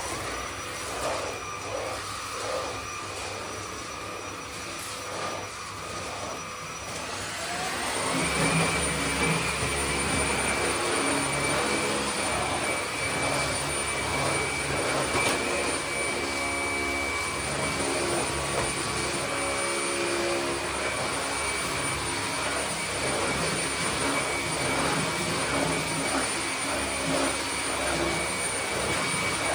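A small electric motor running with a steady whine, speeding up to a higher, louder pitch about seven seconds in and holding there.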